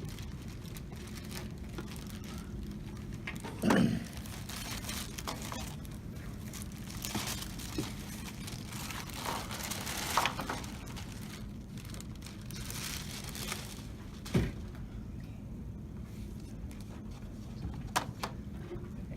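People moving about and handling things: rustling and crinkling, with a few scattered knocks about 4, 10, 14 and 18 seconds in, over a steady low hum.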